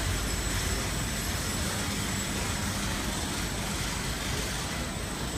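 Steady city traffic noise with the running hum of an outdoor escalator, even throughout with no distinct events.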